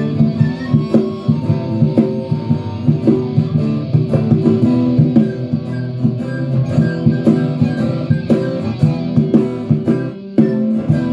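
A band playing a song led by guitars, with a steady beat. About ten seconds in there is a brief drop in the sound before the band comes back in.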